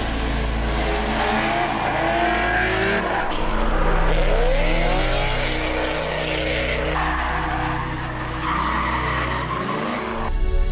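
Drift cars' engines revving up and down hard while their tyres squeal and skid through sideways slides. The sound changes abruptly about three, seven and ten seconds in, as one shot gives way to another.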